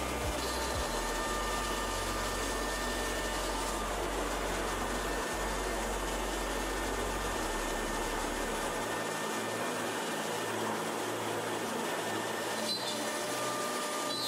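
AXYZ Woodworker CNC router running a cut in a wood sheet: a steady noise of the spindle and its dust extraction, with faint whining tones that come and go and a few light ticks near the end.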